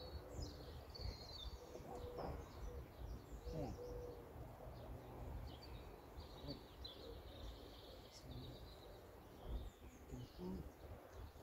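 Faint outdoor birdsong: short high chirping phrases from small birds, with a few lower, steady-pitched calls, over a faint low rumble.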